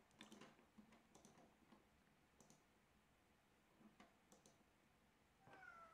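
Near silence with faint, scattered clicks of a computer mouse and keyboard. Near the end a cat's meow starts, falling in pitch.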